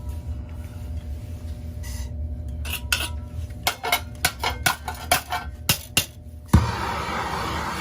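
A string of sharp metallic clinks and taps, some with a short ring, then a sudden thump about six and a half seconds in, after which a steady rushing noise begins.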